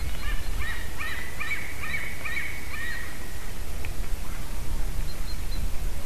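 Common cranes calling: a quick series of rising-and-falling honking calls, several a second, for about three seconds, then stopping. A steady low rumble runs underneath.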